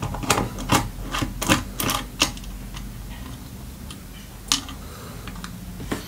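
Sharp small clicks and taps of a screwdriver working the retaining screw of a laptop-style M.2 Wi-Fi card on a mini-PC motherboard, about seven in quick succession at first, then one more after a pause.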